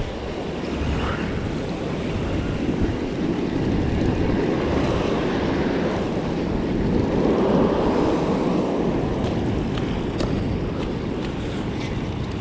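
Ocean surf breaking and washing over a rock ledge, with wind buffeting the microphone; a wave surges loudest about seven to eight seconds in.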